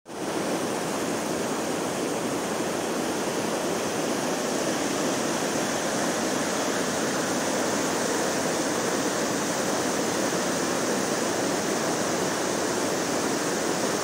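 Fast river water rushing over rocks and a stepped weir cascade: a steady, even rush of water.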